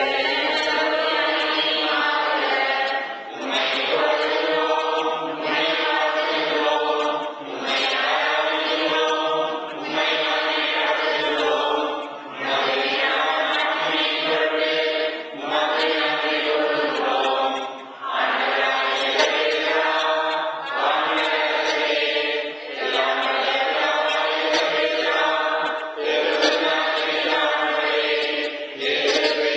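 Church choir singing a hymn during Mass, in phrases of two to four seconds with short breaks between them.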